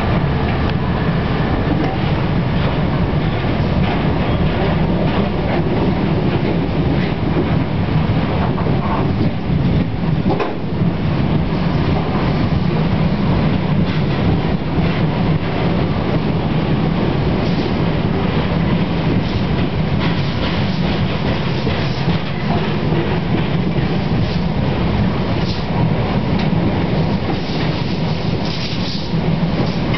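Freight train of loaded bogie tank wagons rolling past close by, wheels clattering steadily and continuously over the rail joints.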